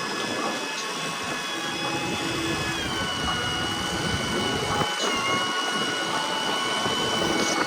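Steady, high motor whine, its pitch dipping slightly about three seconds in and again about five seconds in.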